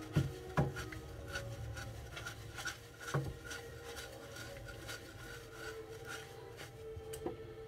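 Wet scouring sponge scrubbing a carved ivory figure in quick, repeated rubbing strokes. Two dull knocks come in the first second and another about three seconds in.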